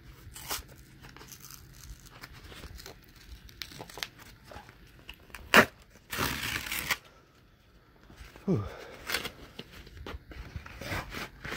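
Cardboard book mailer being torn open by hand: scattered scrapes and crinkles of stiff card, a sharp snap about five and a half seconds in, then a ripping tear lasting most of a second, with more rustling of the card near the end.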